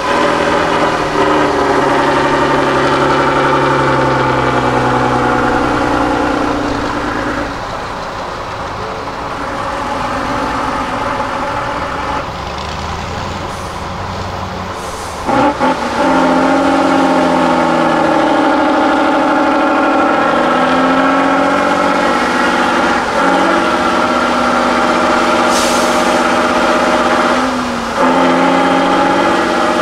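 A Tatra 813 8x8 trial truck's diesel engine labours under load as it crawls through deep mud, its revs rising and falling. It eases off for several seconds in the middle, then comes back hard all at once, with brief dips in revs near the end.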